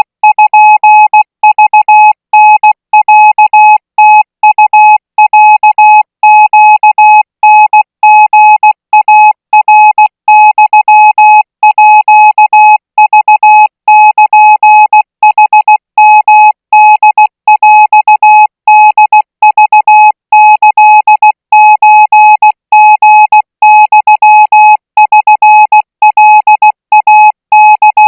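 Thai Morse code sent at 20 words per minute as a single-pitched beep, keyed on and off in short dots and longer dashes with brief gaps between letters.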